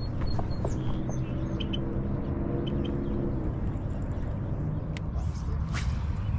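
Small birds chirping over a steady low outdoor rumble, with a distant engine drone for the first three seconds or so.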